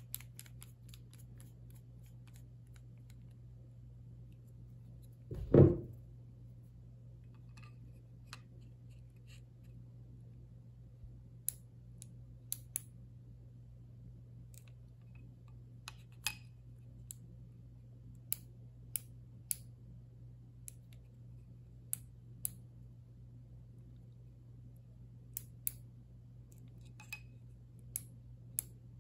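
Sharp, separate small clicks from a Mitutoyo digital micrometer being worked and closed onto a steel rifle barrel, a dozen or so spread through the second half. One loud dull thump sounds about five and a half seconds in, over a steady low hum.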